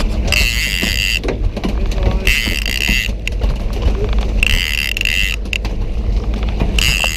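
Fishing reel being cranked in short spells about every two seconds while a hooked albacore tuna is reeled up, over the boat engine's steady low running.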